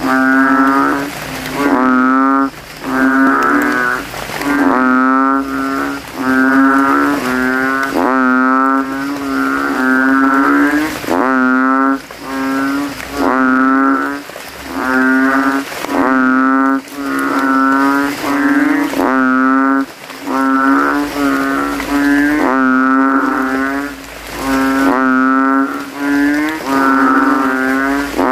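Kintel frogs (Kaloula bullfrogs) calling from a rain puddle: loud, deep calls, each under a second long, repeating about once a second. The males are puffing up their throats and competing to be the loudest.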